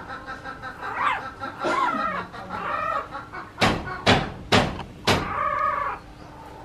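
Newborn puppies whining and squealing in rising and falling calls, broken in the middle by four sharp knocks about half a second apart.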